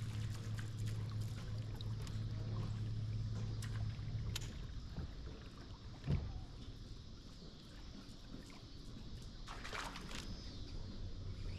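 Bass boat's bow-mounted electric trolling motor humming steadily, cutting out about four seconds in and starting again near the end. A single short thump about six seconds in.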